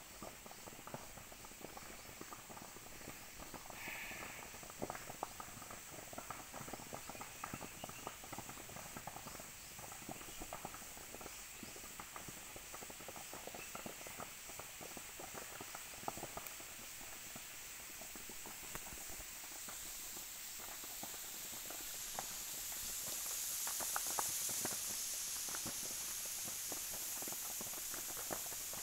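Distant crackling and snapping of a jhum (slash-and-burn) fire burning across a hillside, many small irregular cracks, over a steady high hiss that grows louder about three-quarters of the way through.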